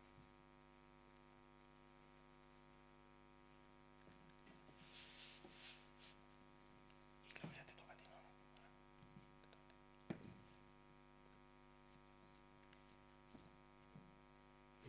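Near silence: a steady electrical mains hum, with a few faint knocks and rustles.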